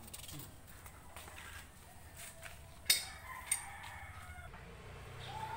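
A faint, drawn-out bird call about three seconds in, just after a sharp click, over low background noise.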